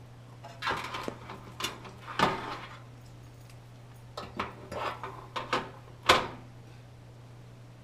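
Handling noise from computer parts and hardware being moved about: a string of short rustles and knocks, with one sharp knock about six seconds in, over a faint steady low hum.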